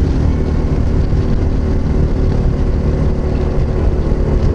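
Yamaha XT660Z Ténéré's single-cylinder engine running steadily at highway cruising speed, with heavy wind noise on the microphone.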